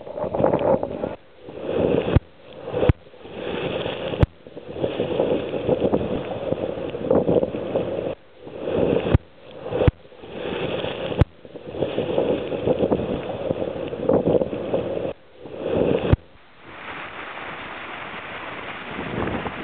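Wind buffeting the microphone and water rushing past the hull of a sailing yacht beating to windward in strong wind. The rush swells and drops away abruptly several times, with a few sharp knocks.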